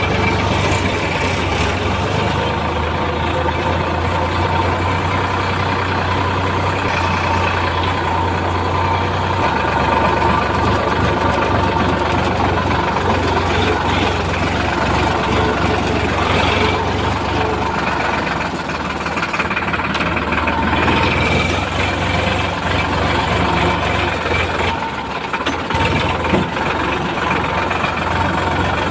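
Heavy diesel engine running steadily, with a constant low hum.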